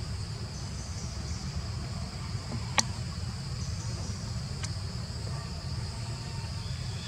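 Steady high-pitched insect chorus of crickets or cicadas, with a low rumble underneath. A single sharp click about three seconds in, and a fainter one a couple of seconds later.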